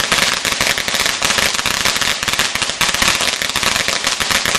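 Fireworks and firecrackers going off in rapid, dense crackling bursts as a packed homemade display burns.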